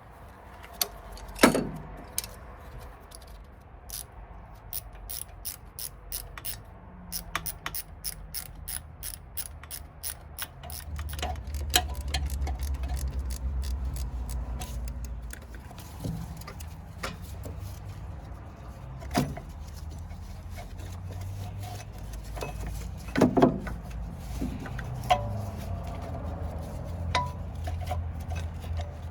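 A ratchet wrench clicking in quick runs, with a few sharper metal knocks from tools against metal.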